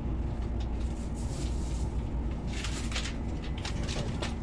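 Cabin ambience of a Tohoku Shinkansen carriage standing at the platform: a steady low rumble with a constant hum from the train's onboard equipment, and a few soft rustles of clothing or handling in between.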